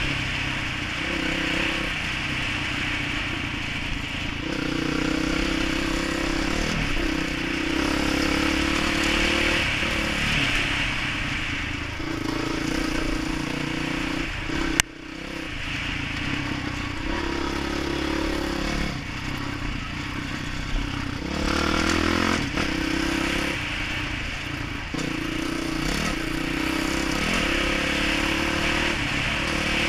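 Dirt bike engine running on a trail ride, its pitch rising and falling in steps as the throttle is worked. A single sharp click about halfway through is followed by a brief drop in the sound.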